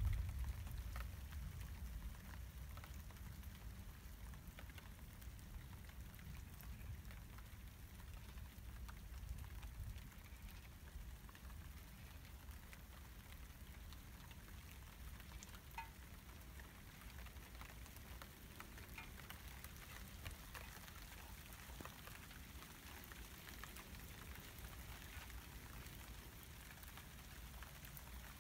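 Light rain pattering with scattered drips. A low thunder rumble fades away over the first few seconds.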